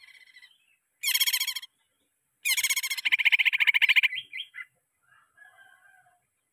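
Male green leafbird (cucak ijo) singing: a faint short phrase at the start, a loud run of rapid repeated notes about a second in, then a longer loud run about two and a half seconds in, trailing off into softer warbling near the end.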